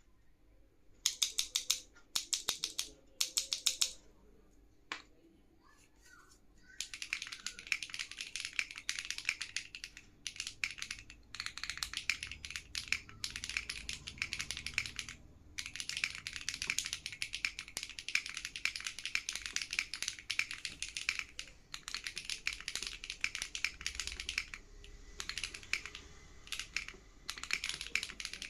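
Fast typing on an Enter67 v2 custom mechanical keyboard with Cilantro switches and OTC Modo Light keycaps. It begins with three short rattling bursts of keystrokes and a single key press. After a pause it settles into steady, rapid typing with a few brief breaks.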